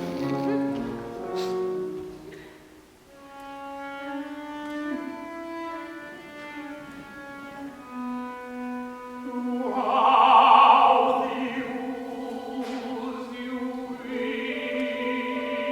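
Live opera music: bowed strings hold long, slow notes that swell to the loudest held note about ten seconds in.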